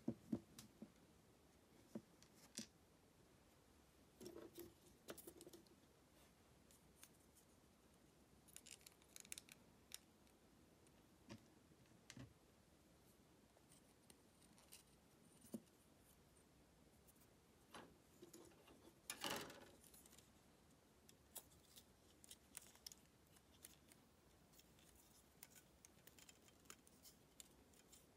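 Small plastic model kit parts being handled: sparse, quiet clicks and snips at irregular intervals, with a short cluster of louder clicks about two-thirds of the way through.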